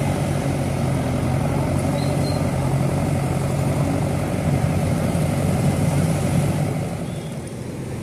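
Diesel engines of JCB 3DX backhoe loaders running steadily under work, a continuous low engine hum that eases a little near the end.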